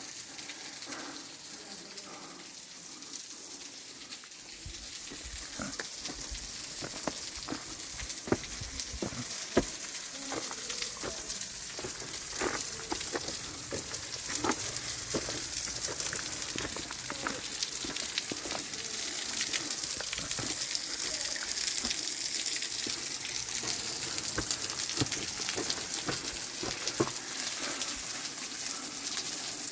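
Spray from a tall waterfall raining down onto rocks and a shallow pool: a steady hiss dotted with many small splats of drops, growing a little louder about five seconds in.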